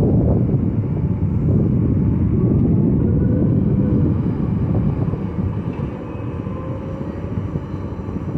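Diesel engine of heavy earthmoving machinery running: a loud low rumble that is strongest in the first half and eases after about four seconds, with a faint whine in the middle.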